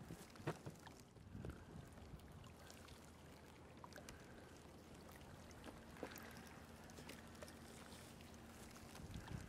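Near silence: faint rustling and a few sharp clicks of a backpack and camera gear being handled, the loudest about half a second in. A faint low steady hum comes in about halfway through.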